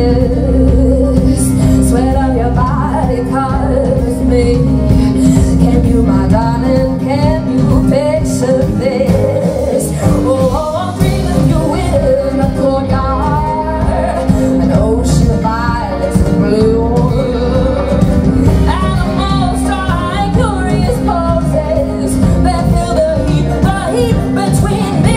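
A woman singing lead into a microphone over a live band of electric guitar and drums, the voice sliding and bending through the melody.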